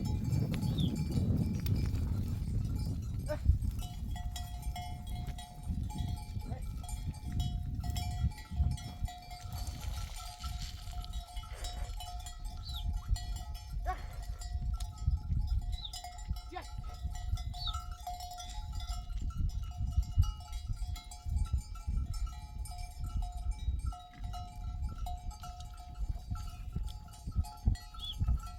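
Bells worn by a grazing flock of sheep clinking and ringing over and over as the animals move.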